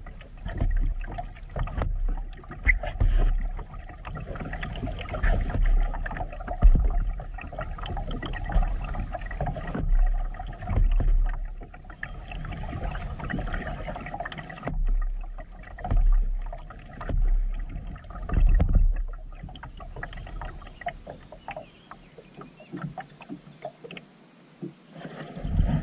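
Kayak paddling: water splashing and sloshing from paddle strokes against the plastic hull, swelling every second or two. It goes quieter for a few seconds near the end.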